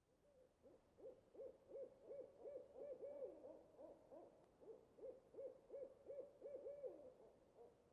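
Owl hooting faintly: a long run of short, repeated hoots, about three or four a second, with a brief lull around the middle.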